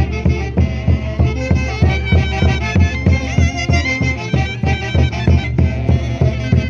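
Live Andean orquesta típica from Huancayo playing Santiago dance music: a high melody over a steady beat of about two strong bass strokes a second.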